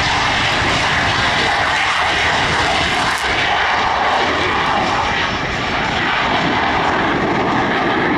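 Jet noise from a Blue Angels F/A-18 Hornet's twin turbofan engines at takeoff power, loud and steady, as the solo jet rolls down the runway and lifts off.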